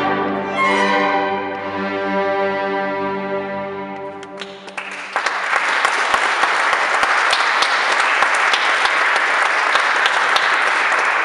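A string orchestra holds its final chord, which fades away over the first four seconds. Audience applause starts about five seconds in and keeps going.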